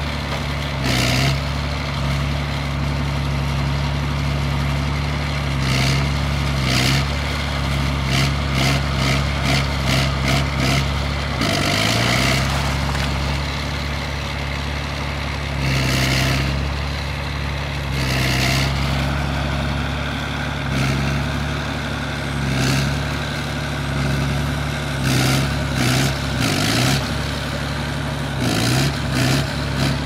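Bulldozer's diesel engine running steadily while it demolishes a house, with repeated sharp cracks, clanks and clatter of the structure breaking, coming in clusters. The engine pitch dips and recovers about twelve seconds in.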